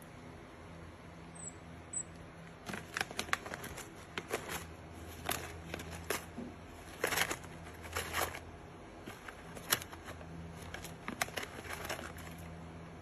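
A paper snack pouch crinkling and rustling in irregular bursts as a common marmoset digs into it with its head and hands. A low steady hum runs underneath.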